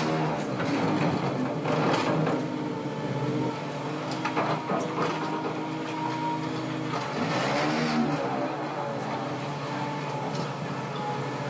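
Excavator engine and hydraulics running steadily while the machine works steel sheet piles with a clamp attachment. Short bursts of harsher noise come twice in the first half, and the machine's pitch sags and recovers about seven seconds in.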